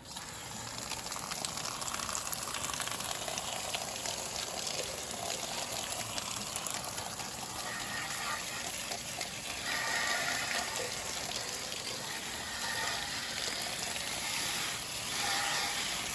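Garden hose with a pistol-grip spray nozzle spraying a steady hissing jet of water onto a tire and wheel, rinsing off the foamed wheel-and-tire cleaner. The spray starts suddenly and its hiss swells a little as the jet moves over the rubber and chrome.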